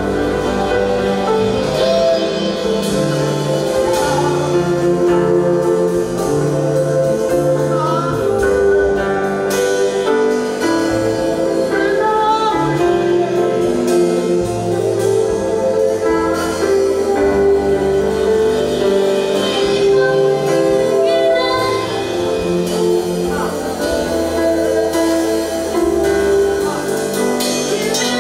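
Gospel worship song played by a band, with a bass line moving under sustained chords and voices singing.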